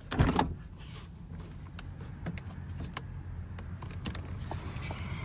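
Parked car with its engine idling, a steady low rumble, with scattered light clicks from inside the cabin.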